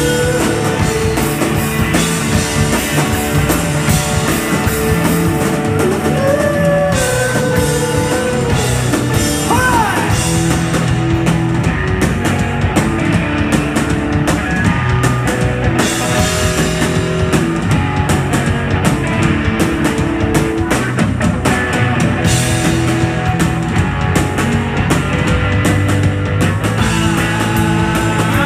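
Live rock band playing loud and without a break: electric bass, electric guitar and a drum kit, amplified.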